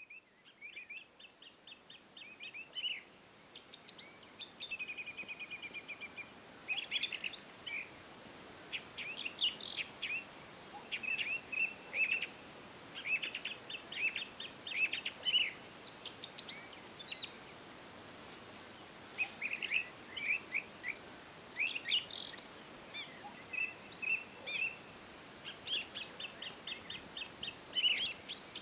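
Small songbirds chirping and singing: many short, high, rapidly repeated calls and trills, over a faint steady hiss.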